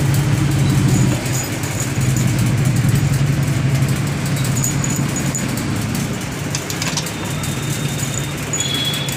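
A steady engine hum, like a vehicle engine idling, with a few light clicks.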